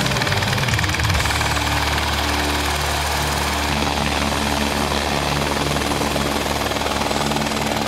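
Helicopter cabin noise in flight: the turbine engine and rotor running with a steady, loud whine and low hum, heard from inside the cabin.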